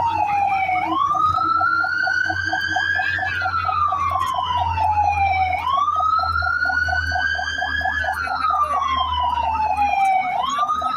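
Fire truck siren wailing, its pitch rising and falling slowly about every five seconds, over a steady low hum that drops out near the end.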